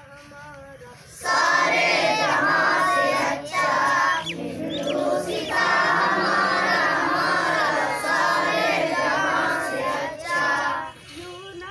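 Group of boys singing a song together in chorus, coming in loudly about a second in, with a few short breaks between lines, and stopping shortly before the end.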